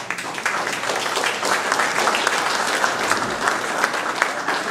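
Audience applauding: many overlapping hand claps starting abruptly and holding steady.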